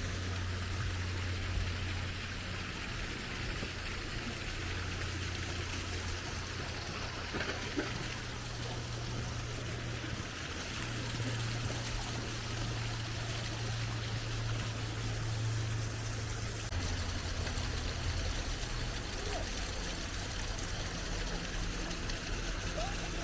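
Steady rushing water with a low rumble underneath.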